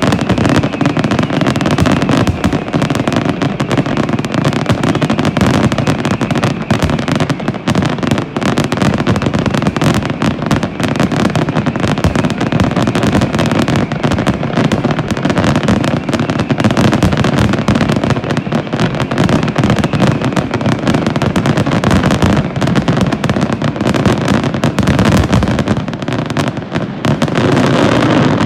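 Fireworks going off in a dense, unbroken barrage, with many bangs and crackles running together.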